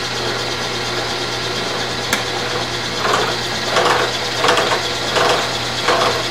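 Milling machine running with a toothed disc cutter on its spindle cutting into a metal shaft, coolant flowing: a steady motor hum, with a rough scraping cutting noise that comes and goes about every 0.7 s from about three seconds in.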